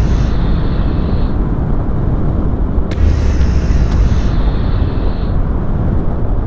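Yamaha motorcycle riding along, its engine running under a steady rush of wind noise, with deep buffeting rumble on the microphone. A faint click and a short hiss come back about every four seconds.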